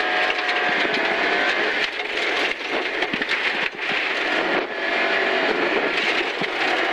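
Volvo rally car's engine at high revs, heard from inside the cabin on a gravel stage, with gravel crackling and knocking against the underside. About two seconds in, the engine note drops and breaks up as the driver lifts off for a bend, then it picks up and runs hard again toward the end.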